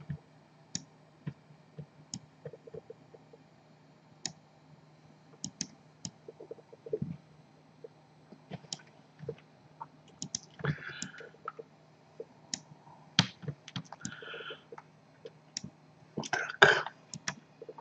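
Irregular, scattered clicks of a computer mouse and keyboard during desktop software work, over a faint steady low hum.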